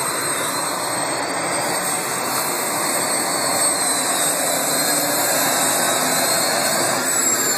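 A modified pulling tractor's engine running flat out as it drags a weight-transfer sled down the pulling track: a loud, steady, jet-like engine noise.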